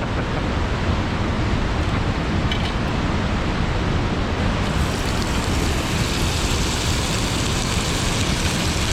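Waterfall rushing: a loud, steady roar of falling water, getting a little brighter and hissier about halfway through.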